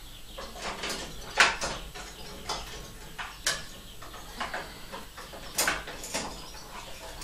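Drill press bit boring into a steel bolt clamped between nuts in a vise, giving irregular short squeaks and clicks as it cuts, the loudest about one and a half seconds in.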